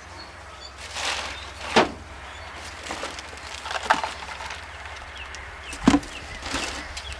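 Packaging and parts being handled: rustling, with three sharp clicks or knocks spaced about two seconds apart.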